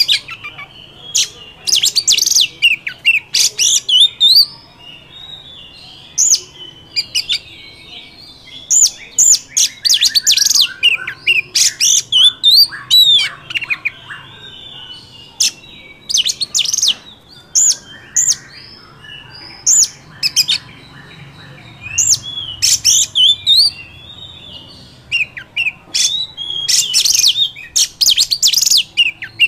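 Oriental magpie-robin singing: loud, high-pitched whistled phrases and quick chirps in bursts a second or two long, with softer chattering between them and a few short pauses.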